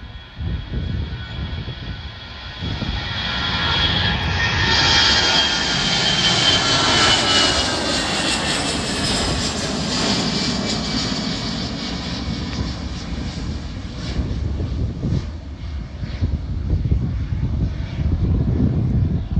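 Jet airliner passing by, its engine whine sliding down in pitch as it goes past, swelling over the first few seconds and then slowly fading under a low rumble.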